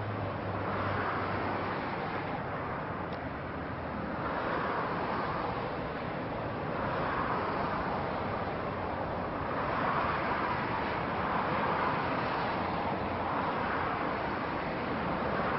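A steady rushing of distant vehicle noise that swells and fades every two to three seconds.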